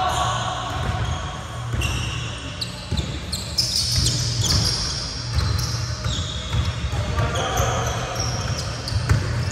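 A basketball bouncing on a hardwood gym floor, with repeated dull thumps and many short, high-pitched squeaks of sneakers on the wood during play.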